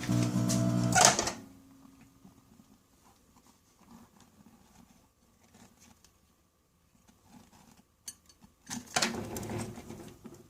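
Microwave oven running with a steady electrical hum and crackling from match-flame plasma, cutting off abruptly a little over a second in. After a quiet stretch, a short clattering noise comes near the end.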